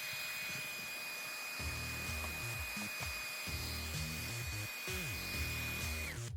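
Background music with a stepping bass line over a steady high-pitched whine, which cuts off near the end.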